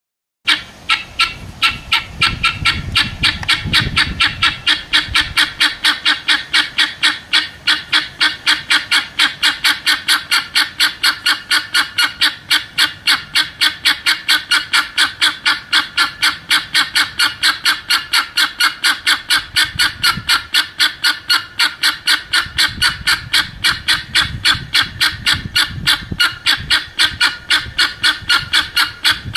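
Flock of helmeted guineafowl calling, a rapid, steady run of repeated calls at about four a second that begins about half a second in and keeps up without a break.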